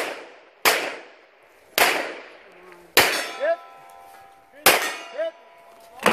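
Rifle shots fired one after another at steel targets, six at uneven spacing, about one a second. Several are followed about half a second later by the ringing clang of a hit steel plate.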